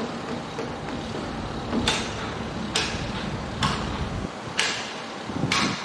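Five evenly spaced hammer blows on metal, about one a second, each with a short ring, from steel work on a construction site. Under them runs a low rumble of site machinery that stops about four seconds in.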